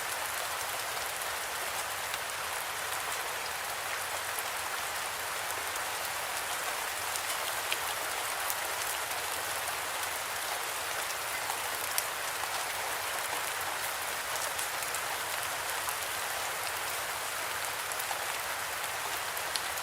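Steady rain falling, an even hiss with the sharp ticks of individual raindrops striking a surface scattered through it.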